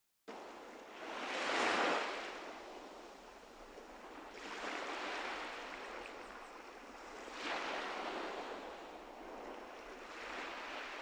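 Ocean waves breaking and washing up the shore in four swells about three seconds apart, the first the loudest. The sound cuts in abruptly just after the start.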